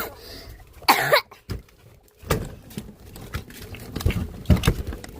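A person coughing once, short and loud, about a second in, followed by scattered soft knocks and rustling.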